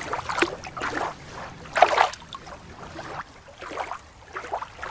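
Shallow water sloshing and splashing in irregular bursts, the loudest about two seconds in.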